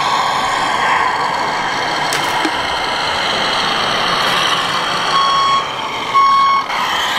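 Electronic reversing beeper from a scale RC construction machine's sound module, sounding high beeps about once a second from about five seconds in, over a steady simulated engine sound.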